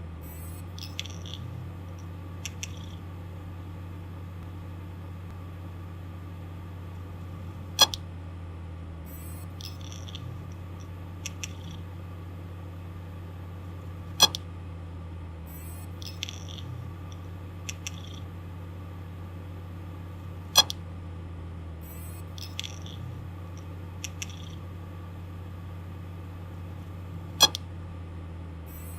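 Failing hard disk drive spinning with a steady hum, broken by a loud sharp click about every six and a half seconds, four times, with quieter ticks and short high chirps in between: a malfunctioning drive with its read/write head repeatedly clicking.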